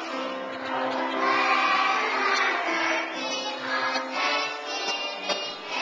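A children's choir singing a song, the voices holding long notes.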